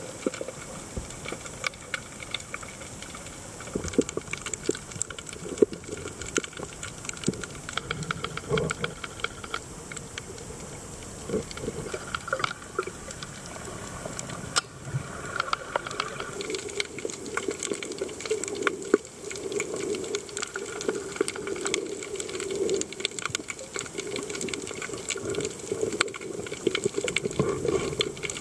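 Underwater sound picked up by a camera on a shallow rocky reef: a steady watery hiss full of dense, sharp crackling clicks, with a louder low murmur of water movement from about halfway through.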